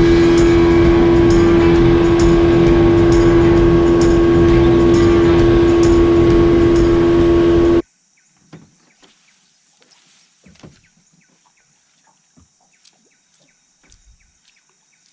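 Boat's tiller outboard motor running steadily at speed, with a strong steady whine over a dense engine drone. It cuts off abruptly about eight seconds in, leaving only faint small knocks and clicks.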